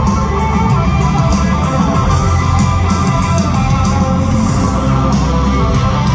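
Live country-rock band playing loud, with electric guitars over bass and drums.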